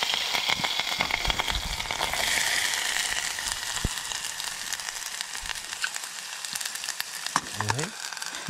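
Ingredients for paneer bhurji frying in a pan: a steady sizzle with many fine crackles, easing a little after the first few seconds.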